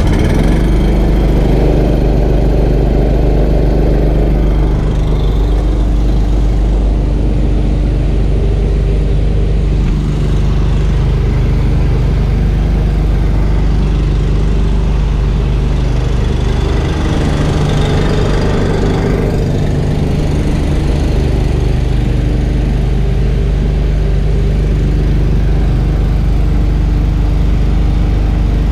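Small engine of a portable air compressor running steadily just after being started.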